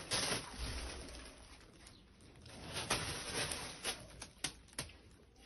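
Dogs moving about a tiled room: a rustling haze that fades, then a few sharp clicks of claws on the tile floor about four to five seconds in.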